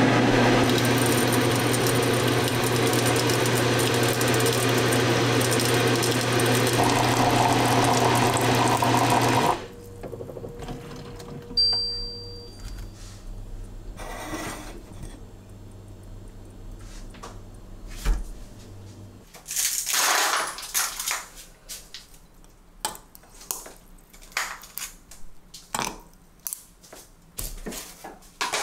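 Countertop water purifier running water into a glass teapot, a steady hum under the rush of the stream, cutting off about nine seconds in, followed by a short beep. From about twenty seconds on, light clinks and knocks of the glass teapot and cup being handled and set down.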